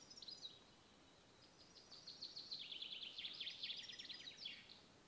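Small songbird singing faintly in the trees: a short twittering phrase at the start, then a longer fast run of high chirping notes from about a second and a half in until near the end.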